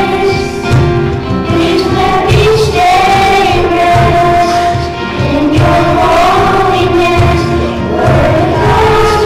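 A choir singing a hymn with instrumental accompaniment, the sung melody held over a steady low beat; at this point in the Mass it is the offertory hymn sung during the preparation of the gifts.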